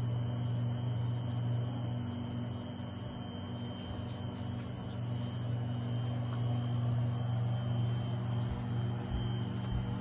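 Heat pump water heater running while it heats water: its compressor and fan make a steady, even hum like a refrigerator, with a faint high tone above it.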